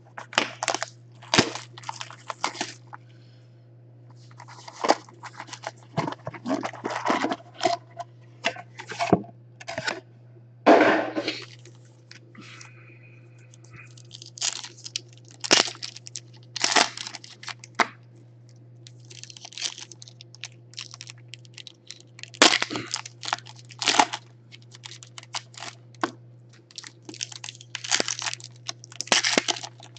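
Foil-wrapped trading card packs and their cardboard box being handled, with packs torn open by hand: irregular crinkling, rustling and crackling over a steady low hum.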